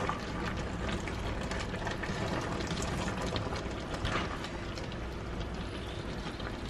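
Thickened pork menudo simmering and sizzling in a frying pan as a spatula stirs it, scraping the pan now and then.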